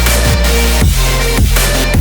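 Loud electronic dance music with a heavy bass beat, a bass drop about every half second.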